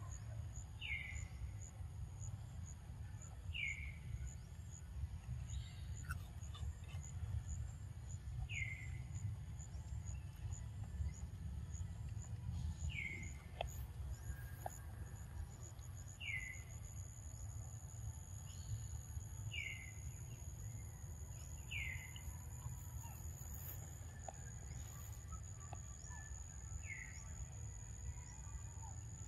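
A bird repeating a short, falling call every few seconds over a steady, high, pulsing insect drone and a steady low rumble.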